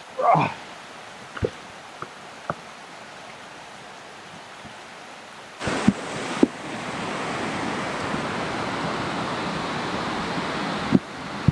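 A short loud gliding sound just after the start and a few light knocks, then, about halfway through, a steady rushing hiss starts suddenly and carries on to near the end, with a couple of knocks in it.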